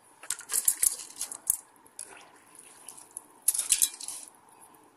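Soaked raw biryani rice spooned and tipped into a metal rice-cooker pot, with clinks and rattles of the utensil against the metal in two bouts, the second about three and a half seconds in.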